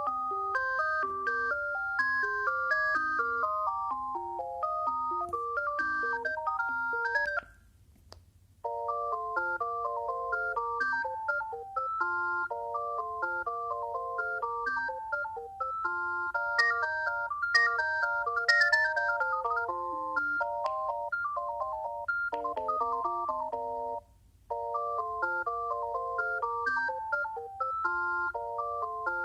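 Alcatel One Touch 320 mobile phone playing electronic ringtone melodies through its small speaker, with several notes sounding at once in a quick tune. The tune breaks off briefly about seven seconds in and again near twenty-four seconds, then starts again.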